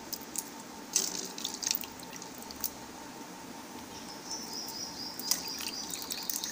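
Hard-boiled eggs being peeled by hand over a bowl of water: eggshell crackling about a second in, then water splashing and dripping off the egg.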